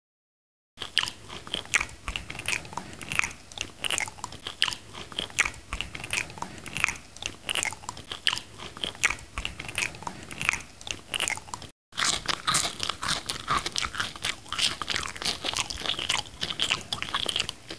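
Close-miked chewing and biting of mango slices: a dense run of wet mouth clicks and crunches. The sound drops out completely for a moment near the start and again about two-thirds of the way through.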